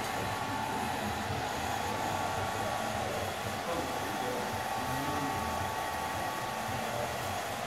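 Steady whirring noise from an electric motor-driven blower, with a faint high whine held at one pitch.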